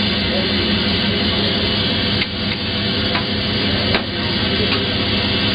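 FIAT 7131 diesel railcar running, heard from inside its driver's cab: a steady engine drone with a few light clicks about two to four seconds in.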